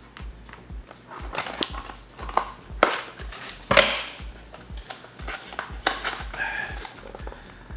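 Foil trading-card pack wrapper crinkling and crackling as it is worked open by hand, in irregular sharp crackles. Its sticky glued seal resists being torn.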